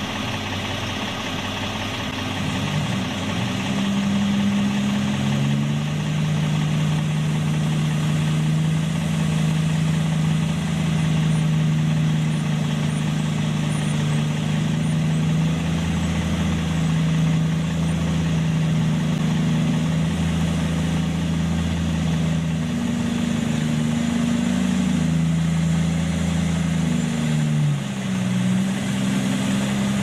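Heavy diesel engines of a Kenworth log truck and a tracked log loader running, with the engine note stepping up and down several times as the loaded truck moves off through the mud.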